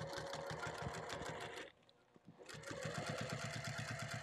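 Sewing machine stitching binding onto the edge of a fabric bag, running at a fast, even rhythm of needle strokes. It stops briefly a little before halfway, then starts stitching again.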